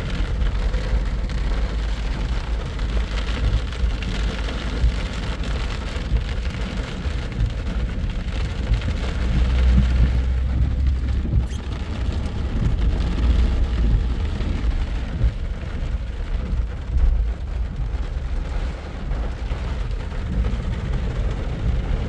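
Heavy rain on a moving car, with wet road and tyre noise under a steady low rumble.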